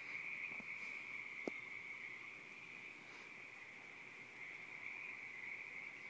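Crickets singing at night in a steady, unbroken chorus, with one soft click about a second and a half in and a few faint, brief high-pitched sounds.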